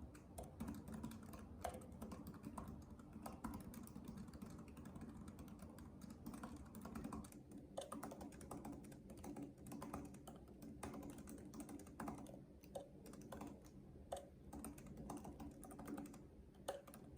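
Quick, continuous typing on an Apple Magic Keyboard for iPad Pro: soft, quiet key clicks from its low-travel keys.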